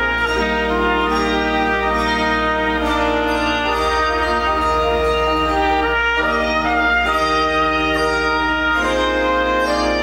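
Brass instruments and handbells play a slow piece of sacred music in held chords over a steady low bass note.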